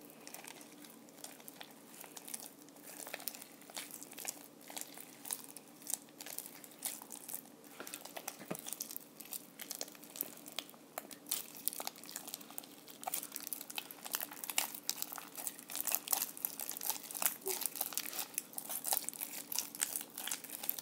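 Homemade glue slime being kneaded and squeezed by hand, giving a run of small wet clicks and crackles that come thicker and louder toward the end. The slime is still a little sticky and more activator is being worked into it.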